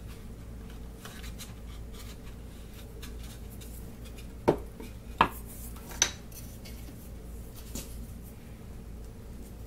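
Three sharp, hard clacks less than a second apart, then a fainter one, from small wooden strips and a spring clamp being handled on a plywood panel.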